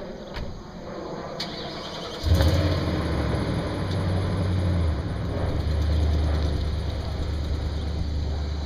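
Two sharp clicks, then about two seconds in a vehicle engine starts with a sudden jump in level and settles into a steady low idle.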